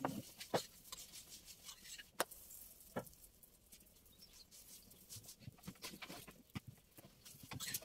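Faint, scattered clicks and taps from handling a chapati pan over a wood fire, a few louder knocks among them.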